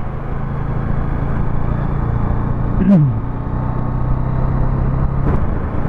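Bajaj Dominar 400 motorcycle engine running at a steady cruise under wind and road rumble, picked up by a microphone inside a full-face helmet. A short falling tone cuts across it about three seconds in.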